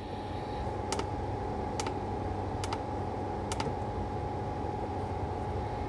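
Button on top of a 2Boom Rollah Bluetooth speaker clicking four times, about a second apart, as it is pressed to switch the light modes, over a steady low hum.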